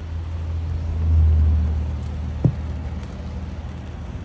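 Low rumble of a car heard from inside the cabin, swelling about a second in, with a single sharp knock about two and a half seconds in.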